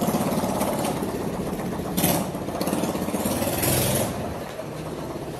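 A small engine running steadily with a fast, even pulse. Two brief rushes of noise come about two seconds in and around four seconds.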